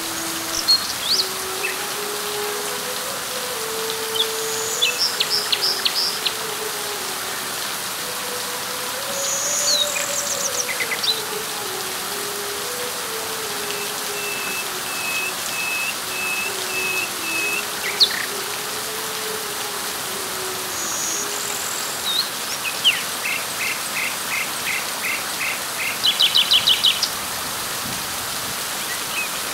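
Steady rain falling on leaves, with small birds calling over it in short runs of quick chirps, one of them an even row of about eight notes near the middle. A faint low tone drifts slowly up and down underneath.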